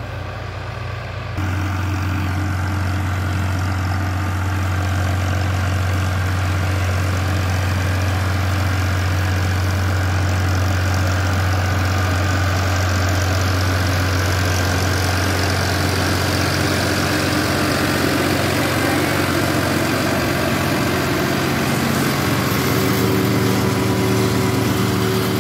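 Farmtrac tractor's diesel engine running steadily, a deep even drone, stepping up louder at a cut about a second and a half in.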